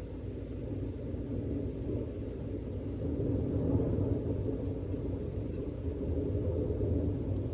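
Thunder rolling in a long, low continuous rumble that swells a little about halfway through.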